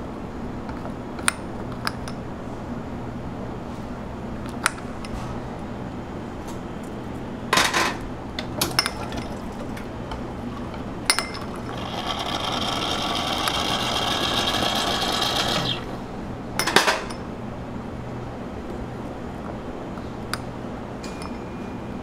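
Waffle-shop work sounds: scattered clicks and two short clatters over a steady appliance hum, with a hissing whir lasting about four seconds a little past the middle.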